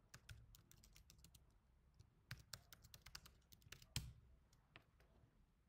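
Faint typing on a computer keyboard: a quick run of key clicks, with one louder click about four seconds in.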